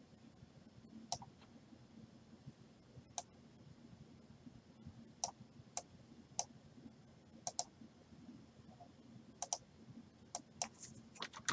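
Quiet, irregular sharp clicks from computer mouse and keyboard use, about a dozen, bunching closer together near the end, over a faint steady hum.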